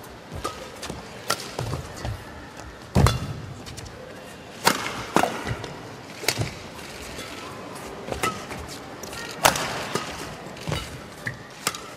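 Badminton rally: rackets striking the shuttlecock back and forth, about one sharp hit a second, over steady arena crowd noise.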